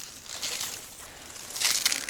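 Rustling and crunching of reeds and bankside vegetation as a person pushes through them, with two louder bursts, about half a second in and near the end.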